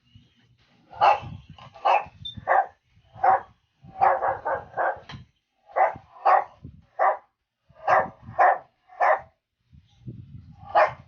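A dog barking repeatedly: about fifteen short, loud barks, mostly one or two a second, with a quick run of several about four to five seconds in.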